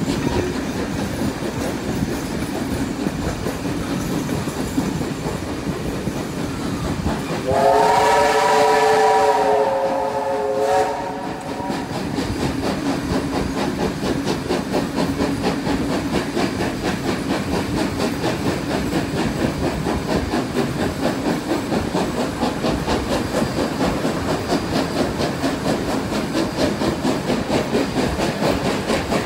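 Two steam trains running side by side at speed, heard from an open carriage window: a steady rhythmic clatter of wheels on the rails. About seven seconds in, a steam locomotive's chime whistle sounds a chord of several notes for about four seconds.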